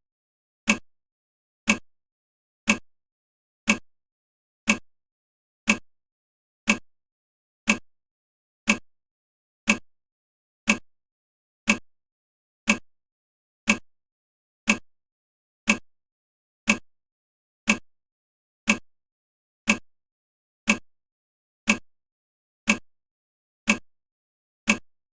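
Countdown timer ticking once a second: short, sharp clock ticks, evenly spaced.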